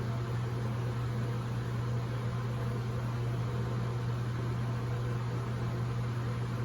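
Steady low hum over an even hiss, unchanging throughout, with no other distinct event.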